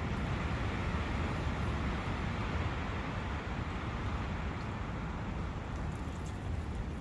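Nature soundscape: a steady rushing noise, heaviest in the low end, with no distinct events.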